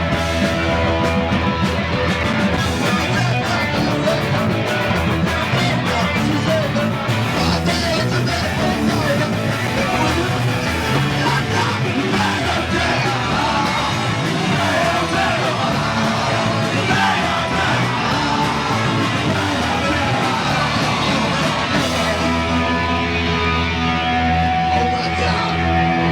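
Punk band playing live and loud, with distorted electric guitar, drums and shouted vocals.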